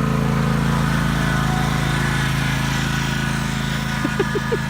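Lawn mower engine running steadily at an even pitch. A few short squeaky chirps come near the end.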